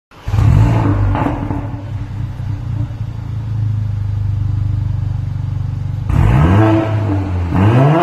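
Mercedes A45 AMG's turbocharged 2.0-litre four-cylinder through an Armytrix valvetronic aftermarket exhaust: it flares up loudly at the start, settles to a steady idle, then is revved twice near the end, each rev rising and falling in pitch.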